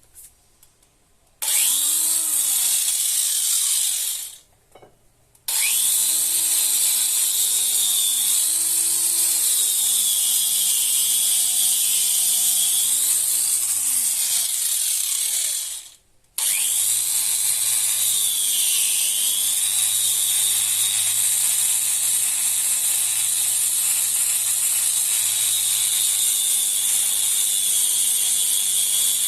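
A power tool running hard, used to clean rust off old tools. It starts about a second and a half in and is stopped briefly twice, around four seconds and near sixteen seconds. Its pitch repeatedly sags and rises as it works.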